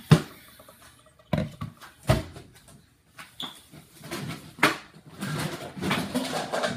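Knocks and clunks of things handled on a kitchen counter, one of them a plastic bowl set down close by, then a busier stretch of handling noise near the end.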